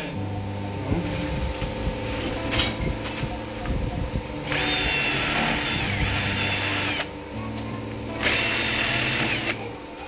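Electric drill boring a hole through a door, running in two bursts, one about halfway in and one near the end, its whine rising as it spins up and dropping as it stops. Background music plays underneath.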